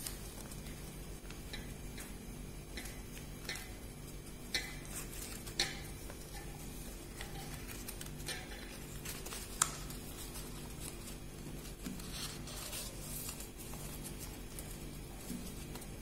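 Sheet of origami paper crinkling and crackling as fingers fold and press it into a crease, with a few sharp clicks, over a low background hum.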